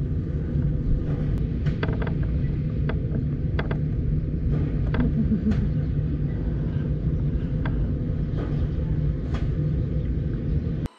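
A vehicle engine idling with a steady low hum and rumble, with a few short light clicks and knocks from handling gear on top.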